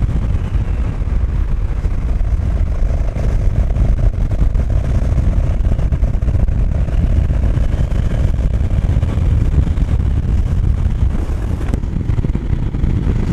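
BMW F 650 GS Dakar's single-cylinder engine running at a steady cruise, mixed with heavy wind rush over the helmet-mounted microphone.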